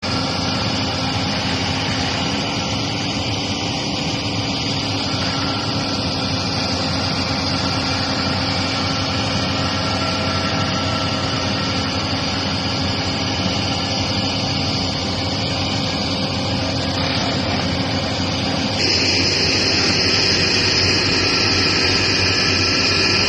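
Diesel engines and hydraulics of L&T-Komatsu crawler excavators running steadily as they work roller compactor attachments over an embankment slope. About nineteen seconds in the sound turns suddenly louder, with a high steady whine on top.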